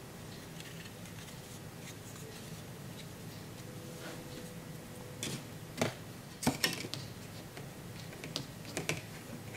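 Hard plastic model kit parts and parts trees being handled and set down on a table: a scattering of light clicks and taps, starting about five seconds in after a quiet stretch.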